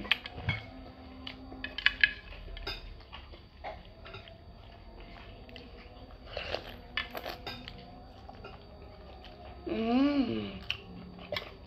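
Plastic spoon clicking against a glass tumbler of iced young-coconut drink while ice and coconut flesh are scooped out and eaten, in scattered sharp clicks, the loudest about two seconds in. A short hummed "mmm" comes about ten seconds in.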